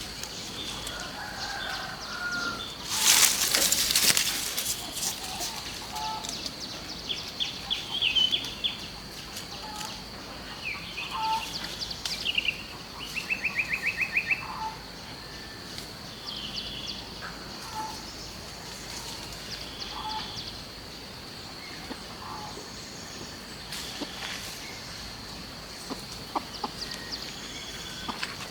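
Chickens clucking, with a burst of wing-flapping about three seconds in and a quick run of short calls around the middle, over a steady high insect drone.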